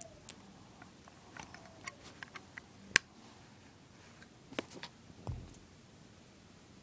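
Small plastic LEGO bricks clicking and snapping as pieces are pressed together by hand, a run of light clicks and then one sharp snap about three seconds in. A few more clicks follow, and a soft low thump a little after five seconds.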